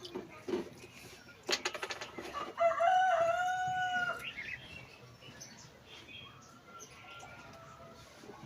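Rooster crowing once, a single drawn-out crow of about a second and a half, preceded by a brief rapid run of clicks. A fainter call follows near the end.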